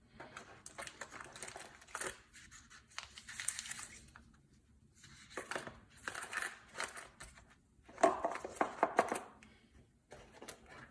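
Plastic packaging and small tools of a tire repair kit handled, crinkling and rustling with small clicks. The sound comes in several bursts, the loudest about eight seconds in.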